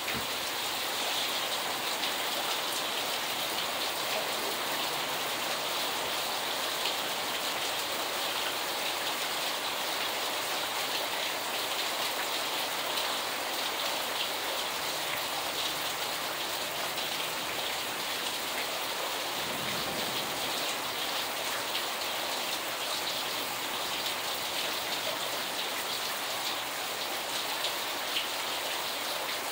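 Steady heavy rain falling on a flooded yard and street, an even hiss of drops on standing water.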